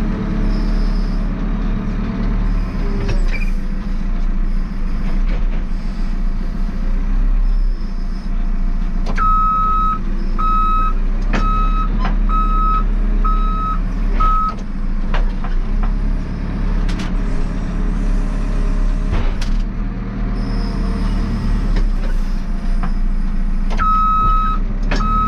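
JCB 3CX backhoe loader's diesel engine running steadily while working soil, with its reversing alarm giving a run of evenly spaced single-pitch beeps midway through and starting again near the end. Occasional sharp knocks come from the machine's working parts.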